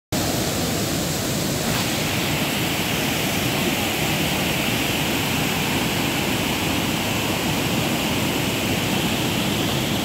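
Waterfall in heavy flow with its white-water stream: a steady, unbroken rush of water pouring over rocks.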